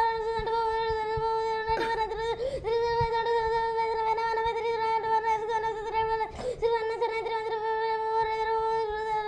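A boy counting aloud at extreme speed, the numbers running together into one high, steady monotone that sounds like a hum. It breaks off briefly about two seconds in and again about six and a half seconds in.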